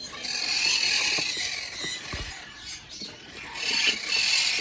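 Many caged birds chirping and chattering at once, a dense high twitter, with a brief low thud about two seconds in.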